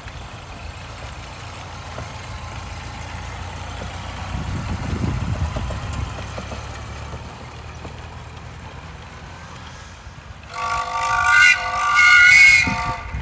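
1930 Ford Model A four-cylinder engine running as the homemade tracked snowmobile drives through snow, a low rumble that grows louder about five seconds in and then fades. Music comes in over it near the end.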